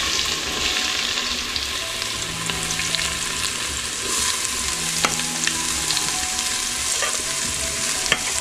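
Chopped onion sizzling steadily as it is dropped into hot oil and ghee in a steel pot, with a few sharp metal-on-metal clicks as the steel spoon scrapes the plate.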